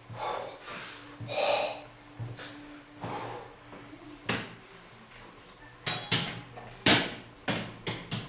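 A series of sharp knocks and clacks, irregularly spaced, starting about four seconds in and loudest around seven seconds, preceded by a brief voice-like sound about a second and a half in.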